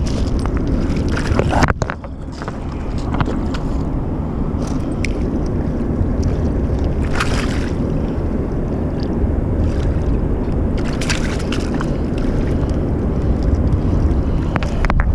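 Wind buffeting the microphone outdoors: a steady low rumble, with a few faint clicks and rustles of handling.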